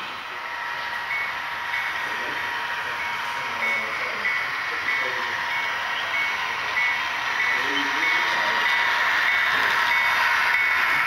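A repeating electronic bell on an HO scale model railroad, about one and a half dings a second, over the steady running noise of the model train. The running noise grows louder near the end as the locomotives come closer.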